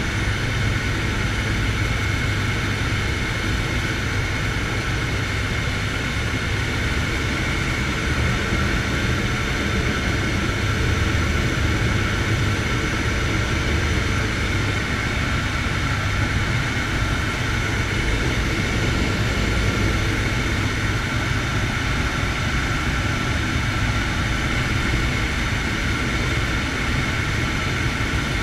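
Air Tractor 502 crop duster's Pratt & Whitney PT6A turboprop engine and propeller running steadily in flight, heard from inside the cockpit. A constant high turbine whine sits over a low propeller drone.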